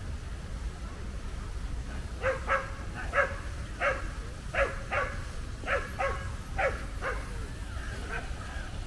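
A dog barking repeatedly: about a dozen short barks, many in quick pairs, starting about two seconds in, over a low steady rumble of city traffic.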